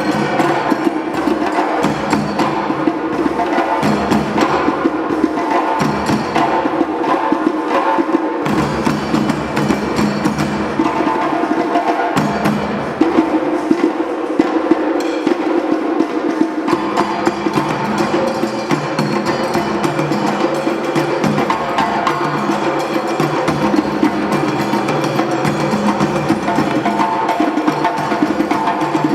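Drum ensemble playing a dense, unbroken percussion groove, with sharp, bright strokes over steady drumming.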